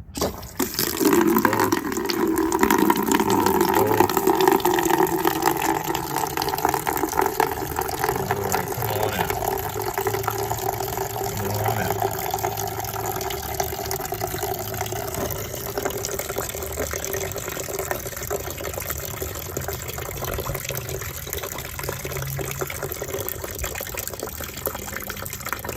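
Water rushing out of an outdoor hose spigot that has just been opened, starting suddenly, with a humming tone in the flow that fades about halfway through.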